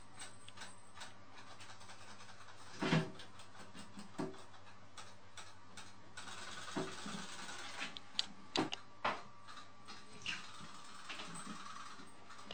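Quiet room tone with a few soft, scattered taps and knocks as cats move and paw about on the rim of a bathtub, the loudest about three seconds in.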